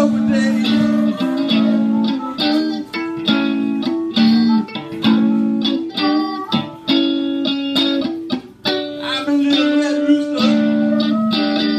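Live electric blues: an electric guitar playing an instrumental passage of picked notes and long held notes through an amplifier, with a harmonica joining in with held notes near the end.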